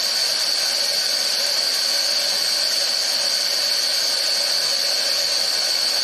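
A steady hiss with a high, even tone running through it.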